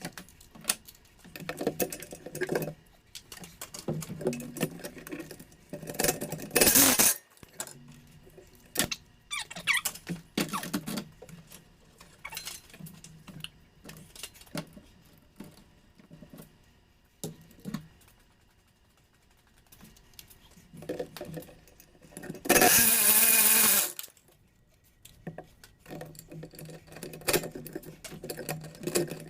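Mechanic's tools at work on a truck engine: scattered metal clinks and clanks, with two loud bursts of noise lasting about a second each, one near a quarter of the way in and one about three-quarters through.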